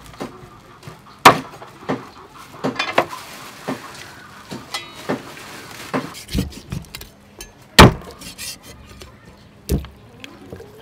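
Meat cleaver chopping a whole raw chicken on a thick chopping block: irregular sharp chops, with three much louder blows, one about a second in and two in the second half.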